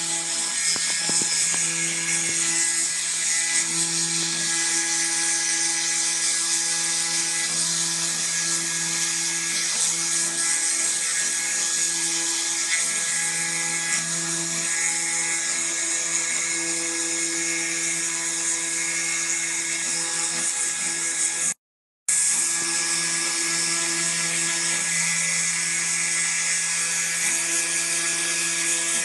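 Small CNC engraving machine's spindle motor running at high speed while its bit mills traces into a copper-clad PCB blank: a steady high whine with a cutting hiss. About three quarters of the way through, the sound drops out for a moment and resumes.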